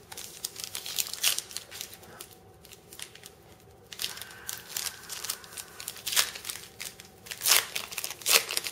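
A shiny trading-card pack wrapper being torn open and crinkled in the hands, with irregular crackles throughout.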